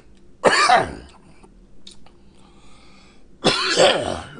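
A man coughing and clearing his throat in two loud fits, about half a second and three and a half seconds in, recovering after food went down the wrong pipe.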